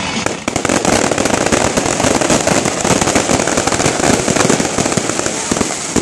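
Fireworks barrage crackling: a dense, continuous rattle of rapid pops and crackles that comes in sharply about half a second in.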